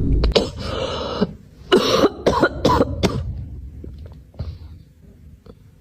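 A run of harsh coughs, about five in the first three seconds, then a few faint sounds.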